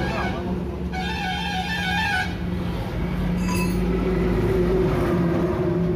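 A motor vehicle's engine running close by, with a wavering pitched tone, horn-like, from about one second in to just past two seconds.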